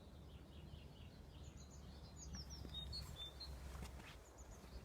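Faint songbirds singing: quick runs of short, high, falling chirps, over a low steady rumble.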